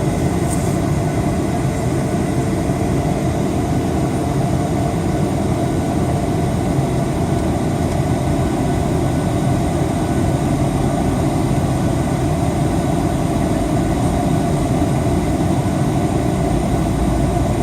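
Steady jet noise of a Boeing 737-800 in flight, a constant mix of engine sound and rushing air. A faint steady tone sits above it, easing slightly lower in pitch over the first several seconds.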